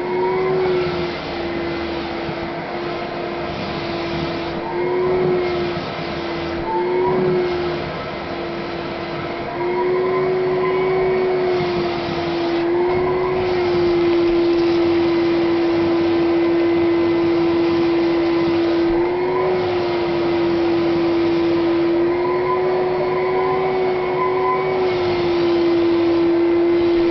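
Vacuum cleaner running steadily as it is worked over a long-haired cat's fur, its hum rising briefly in pitch several times. It gets somewhat louder about a third of the way through.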